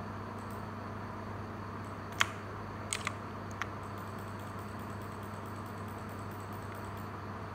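Steady low electrical hum, with a few sharp clicks of mechanical keyboard keys: one loud click about two seconds in, then a quick pair and a single click within the next second and a half.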